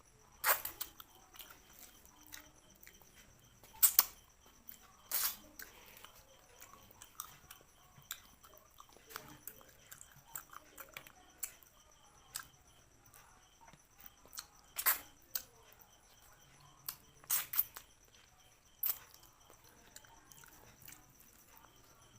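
Close-miked eating sounds: chewing, with irregular sharp clicks and a handful of loud cracks, as crab shell or fish bones are bitten and sucked.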